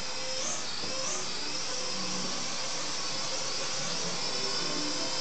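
The small motors and propellers of a Snaptain S5C toy quadcopter, whining high and steady as it lifts off and climbs. The pitch wavers up and down a couple of times in the first second or so.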